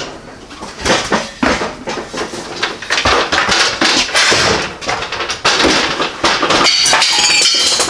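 Metal tools and parts clattering and knocking as they are shoved and moved aside, with irregular clanks that grow into a dense run from about three seconds in until near the end.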